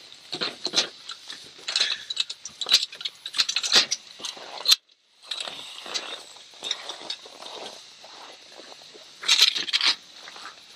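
Irregular clattering, rustling and crunching as snowboards and bindings are handled on a rack and feet move over snow, with a louder cluster of knocks near the end. The sound cuts out for a moment about five seconds in.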